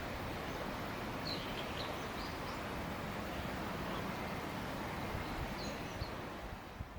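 Steady outdoor background noise with a few faint, short bird chirps, fading out near the end.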